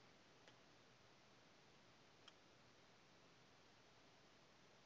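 Near silence: room tone, with two faint short clicks, about half a second in and a little after two seconds in.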